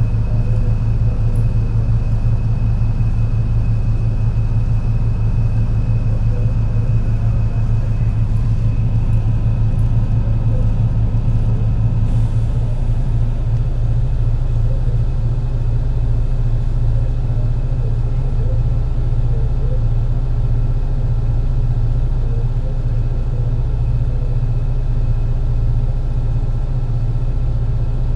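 MAN NL202 CNG city bus engine pulling under load on a hill climb, with a steady deep rumble and a thin high whine over it. About twelve seconds in its sound changes and turns choppier and uneven, in keeping with the engine's bad misfire.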